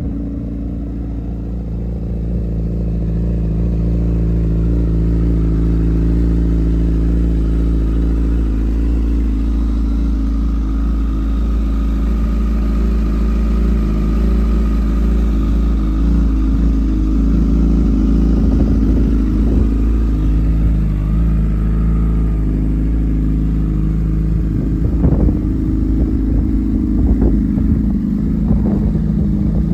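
Honda CBR1000RR Fireblade's liquid-cooled inline-four idling steadily in neutral, with a few brief knocks near the end.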